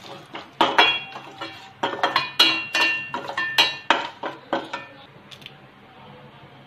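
A metal spoon stirring spices in oil in a stainless steel pan, scraping and clinking against the pan with a ringing tone in a quick run of strokes that stops about five seconds in.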